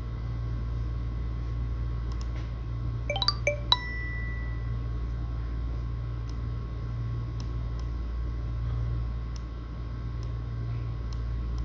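Steady low hum throughout. A little over three seconds in, a quick cluster of three short, bright dings, the last ringing on briefly. Faint ticks sound now and then.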